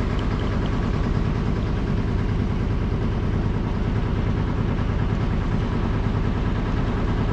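Boat engine running steadily under way, a constant low drone.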